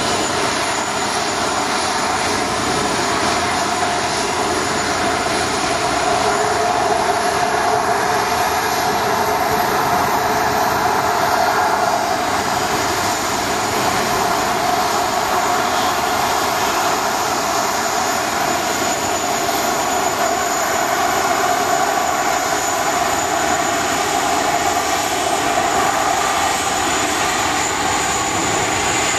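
Airbus A320 airliner's twin jet engines running at low power while it taxis, a steady rushing noise with a high fan whine. A thin high tone rises slightly about seven to twelve seconds in.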